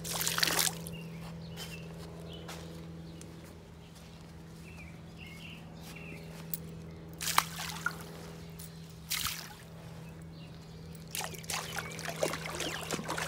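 Liquid pool sanitizer poured from a measuring cup splashes into pool water in the first second. The water then sloshes and trickles in a few short bursts, around halfway through and again near the end.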